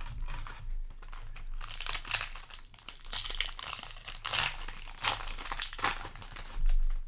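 Crinkling of a foil Yu-Gi-Oh! booster pack wrapper being handled, an irregular crackle throughout with some tearing.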